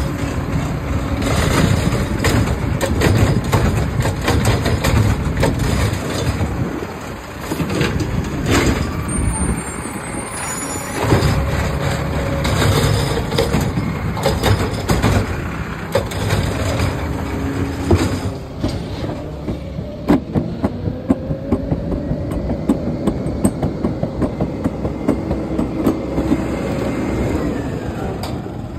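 Automated side-loader garbage truck running close by, its diesel engine rumbling as it moves alongside the curb. In the second half comes a run of sharp metal clanks and rattles with a faint held whine.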